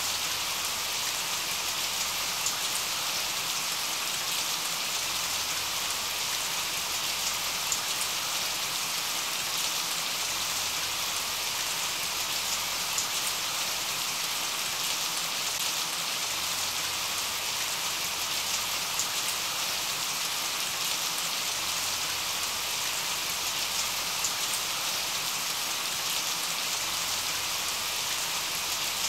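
Steady recorded rain: an even hiss with scattered faint drop ticks, unchanging throughout.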